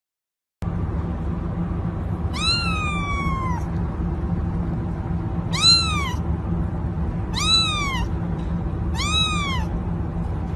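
Ginger kitten meowing four times, the first call longer than the rest, each rising briefly then falling in pitch, over steady low background noise.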